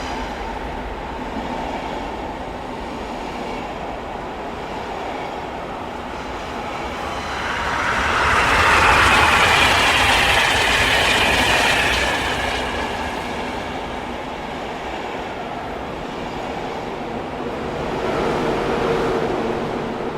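High-speed train running on rails: a steady rumble and rushing hiss that swells to its loudest about eight to twelve seconds in, then eases off and rises briefly again near the end.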